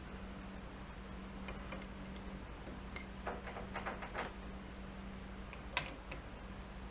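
A few light metallic clicks and taps from a small hand tool and screws on a steel lathe chuck, bunched together about halfway through with one sharper click near the end, over a steady low hum.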